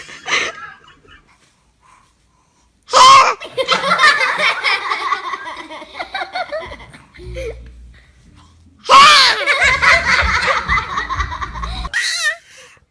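A baby sneezes, followed by several seconds of laughter; about six seconds later another sneeze sets off another round of laughter.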